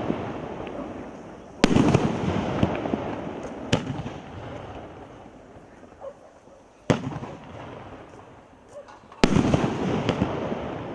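A 36-shot, 2-inch firework cake firing. There are loud bangs about one and a half, seven and nine seconds in and a weaker one near four seconds, each followed by a noisy tail that fades over a couple of seconds.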